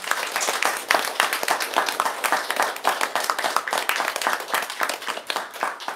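Small audience applauding, with single claps from hands close to the microphone standing out.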